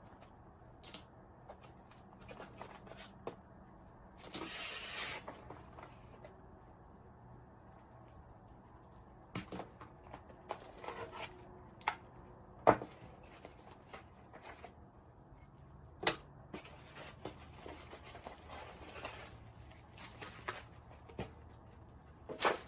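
Unboxing handling sounds: cables, a power adapter and packaging rustled and moved about, with a burst of rustling about four seconds in and a few sharp knocks as parts are set down on the table.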